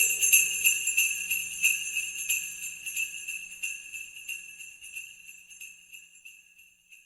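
Sleigh bells jingling in even shakes, about three a second, fading away steadily until they die out near the end.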